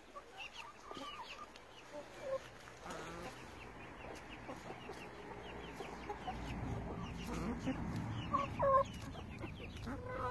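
Domestic hens clucking while they feed on fresh greens, with quick high chirps running through and a louder pair of clucks near the end.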